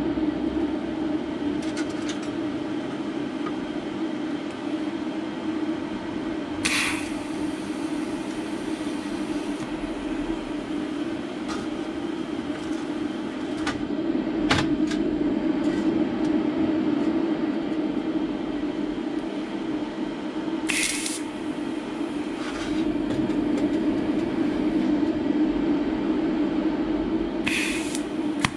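A steady mechanical hum, with three short hissing bursts: about a quarter of the way in, about two thirds in, and near the end.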